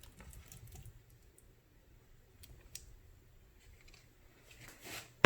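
A few faint, light clicks and taps of cut sausage pieces and a utensil going into a skillet with the heat off, so there is no sizzle; a sharper click comes near the end.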